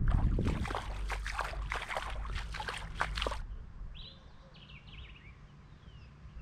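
A quick series of about ten sharp noisy bursts over the first three seconds, then a bird chirping a few short descending calls.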